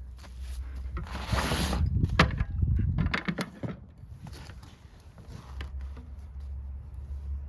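Plastic top cover of a new chainsaw being unlatched and lifted off by hand: a rustle of handling, then several sharp clicks and knocks of the cover and its latch, with lighter handling noises after.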